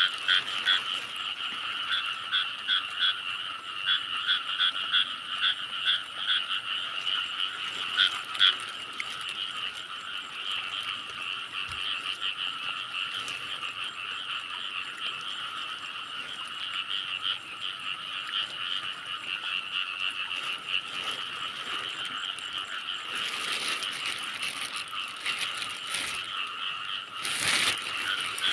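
A dense chorus of frogs calling continuously, fast repeated pulsing notes at two pitches, with individual calls standing out more clearly in the first few seconds. Brief rustling noises come near the end.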